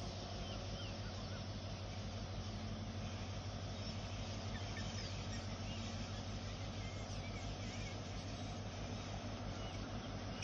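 Steady low drone of a diesel locomotive engine, the WDP4D, running as it pulls away into the distance, with faint bird chirps over it.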